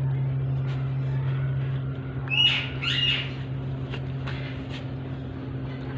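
Alexandrine parakeet giving two short calls about two and a half seconds in, with a few sharp clicks around them, over a steady low hum.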